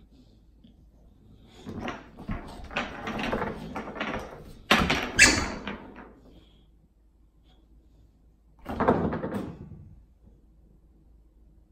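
A bulldog rummaging through a pile of toys on a hardwood floor: toys knocking and clattering for about four seconds, with two sharp loud knocks in the middle, then another short burst of clatter about nine seconds in.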